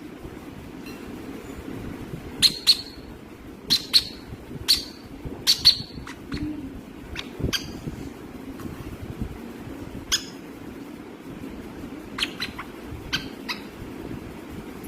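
A parrot giving short, sharp squawks, often in pairs, about a dozen in all: a cluster between about two and six seconds in, then scattered calls later.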